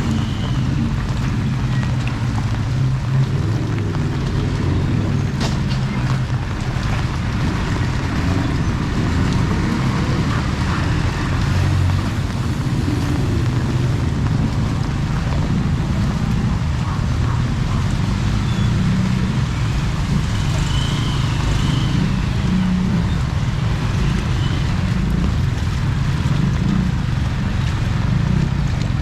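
Steady street noise in heavy rain: a continuous low rumble with the hiss of rain over it, without a break.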